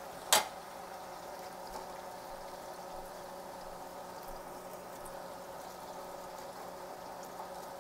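Hot oil bubbling steadily in an electric deep fryer, with the chicken nuggets done frying. A single sharp metal clank sounds about half a second in.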